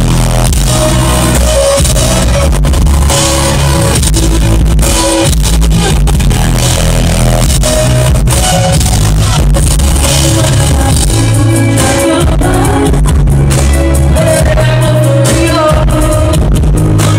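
A live pop song played loud through a concert PA: a woman singing over heavy bass and a steady drum beat.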